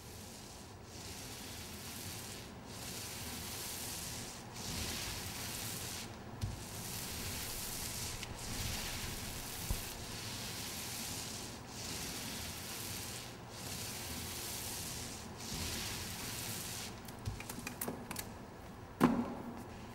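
Regular rubbing or scraping strokes, one about every two seconds, like a tool worked back and forth over a surface. Near the end come several small clicks and one loud wooden clunk against the bucket.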